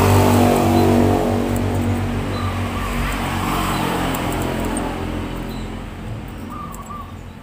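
A motor vehicle engine running with a steady low hum that fades gradually over several seconds, as if the vehicle is moving away. A few faint high clicks sound over it.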